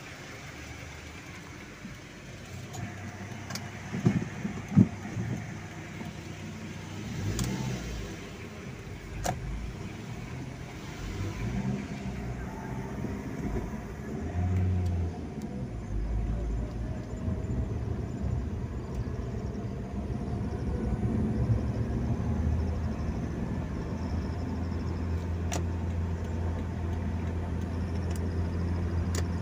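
A motor vehicle's engine running, its low hum growing louder from about seven seconds in and holding steady near the end. Two sharp knocks come around four and five seconds in.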